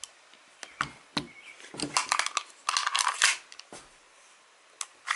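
Full-metal Makarov Ultra BB pistol being handled and turned over: a run of sharp metal clicks and short scrapes, busiest in the middle.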